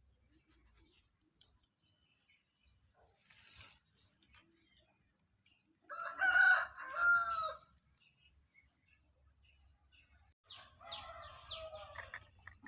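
A rooster crowing: one loud crow about six seconds in and a second, fainter crow near the end. Small birds chirp throughout.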